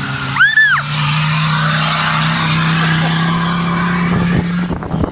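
Off-road race car's engine held at high, steady revs as it runs across the muddy dirt track, with tyre and mud noise; the engine note drops away near the end. A brief high squeal that rises and falls comes about half a second in.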